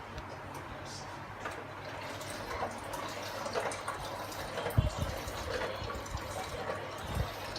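Kitchen water sound, running or bubbling, over a steady low hum, with a couple of soft knocks about five and seven seconds in.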